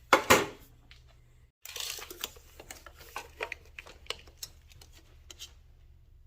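Handling noises from a wooden floorboard being moved and worked on a bench: a burst of rustling at the start, then light scrapes, clicks and small knocks.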